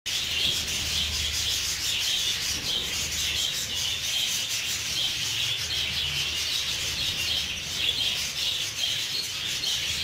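Budgerigars chattering steadily as a small flock while pecking and rustling through a tray of sprouted seeds, a dense high twittering with fine pecking ticks throughout.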